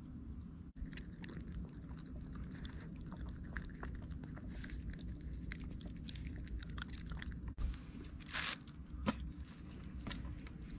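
Close-up chewing and biting of braised beef and noodles, many small wet clicks and crunches, over a low steady hum.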